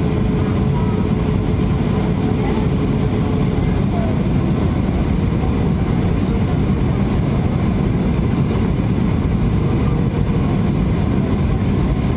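Steady cabin noise inside a Boeing 737-800 on final approach: its CFM56-7B engines and the airflow over the fuselage make an even, low roar with a few faint steady tones.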